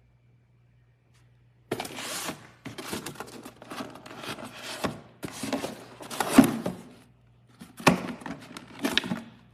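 Irregular handling noises: rustling and scraping with several sharp knocks, in bursts with short pauses. They start after a faint steady low hum.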